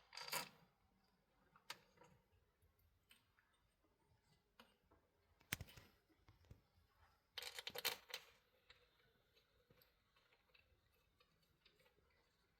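Near silence broken by a few small clicks and taps of bolts and hand tools being handled, with a short rattle of rapid clicks a little past the middle.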